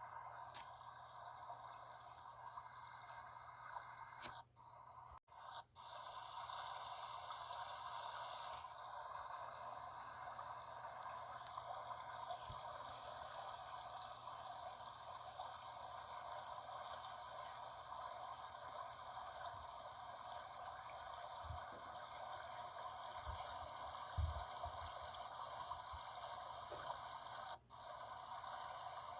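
Mountain stream flowing, a steady rush of water. The sound drops out briefly a few times, and a few soft low thumps come about two thirds of the way through.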